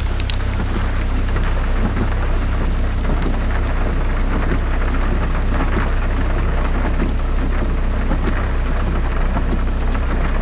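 Rain falling steadily in a thunderstorm, an even hiss over a continuous low rumble.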